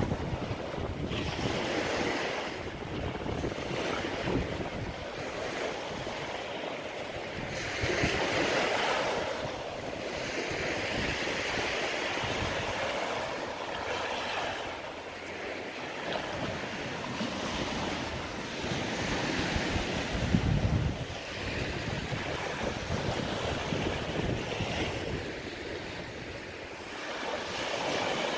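Small surf washing onto a sandy beach in repeated swells every few seconds, with gusts of wind buffeting the microphone.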